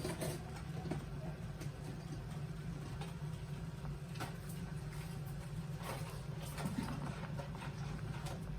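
Scattered light clicks and taps of kitchen utensils over a steady low hum, as during cooking.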